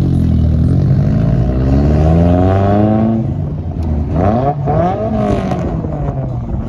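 Lowered Chevrolet Colorado pickup's engine revving as the truck pulls away: the pitch climbs for about three seconds, drops, then rises and falls in a few quicker revs.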